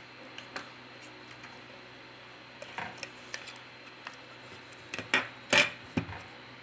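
Back cover of a Xiaomi Redmi Note 4 being pried off with opening tools: scattered small clicks and taps, with the loudest few near the end.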